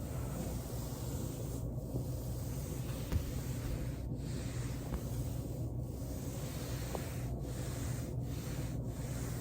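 Person rolling on a foam roller: steady rubbing and hissing of clothing and body against the foam, easing off briefly every second or so, with one short click about three seconds in.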